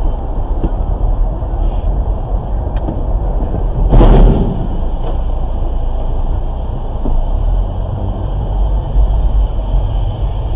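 Low, steady rumble of road and engine noise picked up by a dashcam inside a car in traffic, with one loud burst of noise about four seconds in.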